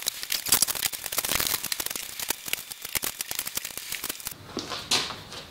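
Rapid, irregular clicking and crackling that stops about four seconds in, from a parallel bar clamp being set on a dowelled wooden cot panel as it is pushed together.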